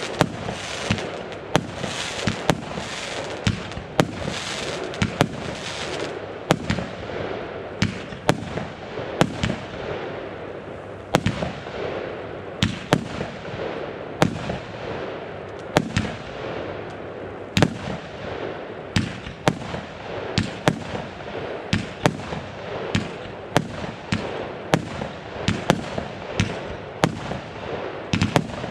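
Consumer fireworks going off in a continuous run: sharp bangs about one or two a second, over a steady hiss and crackle.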